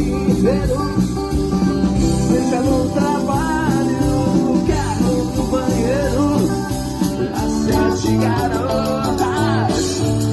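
Rock band playing an instrumental passage: electric guitar and bass over drums, with a melodic lead line that bends in pitch.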